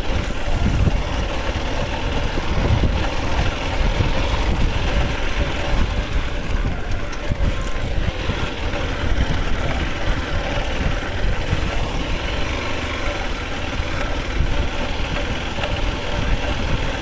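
Yamaha motorcycle engine running steadily while the bike is ridden along a dirt track, with wind rumbling unevenly over the microphone.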